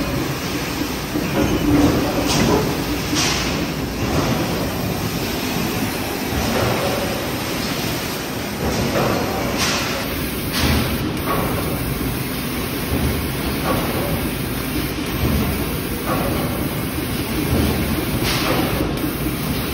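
Heavy industrial machinery running at a hot forging press: a steady low rumble, broken every few seconds at irregular intervals by short bursts of hissing or clanking noise.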